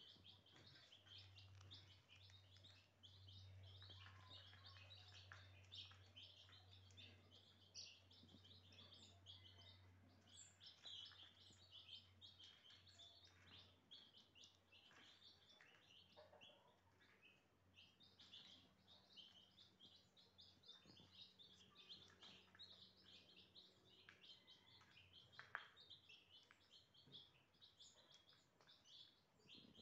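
A brood of baby chicks peeping: a faint, constant stream of many short, high chirps overlapping one another.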